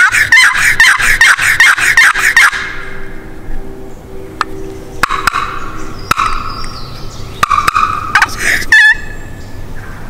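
Wooden turkey box call run in a fast string of about ten loud yelps over the first two and a half seconds, then softer calling. A wild turkey gobbler gobbles in answer near the end.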